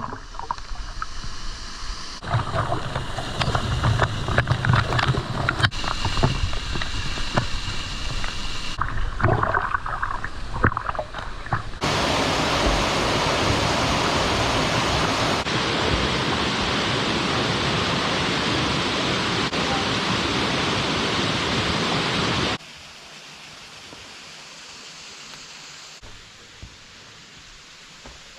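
Rushing water of a waterfall and stream, in several clips that cut from one to the next. In the first part irregular knocks and crackles sit on top of the rush. Then it becomes a loud, steady, even rush, and about two-thirds of the way through it drops to a much quieter rush.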